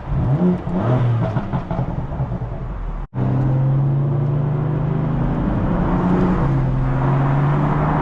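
BMW F82 M4's twin-turbo straight-six running while driving in traffic, its note rising and falling over the first few seconds. It cuts out for an instant about three seconds in, then settles into a steady drone with a slight rise and fall.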